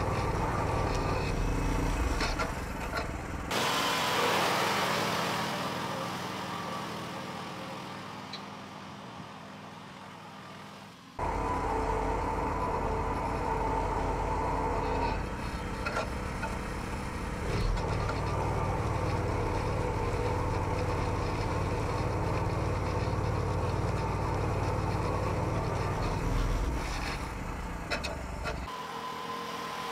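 A homemade mini tractor's engine runs steadily under load as it pulls a moldboard plow through the soil. It is heard close up, then at a distance fading as the tractor moves away, then close up again.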